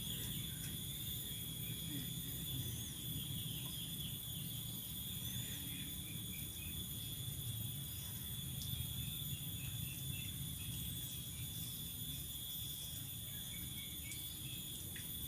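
Steady chorus of crickets and other insects: an unbroken high trill, with a second, higher band above it. A low steady rumble sits underneath, with a few faint small chirps.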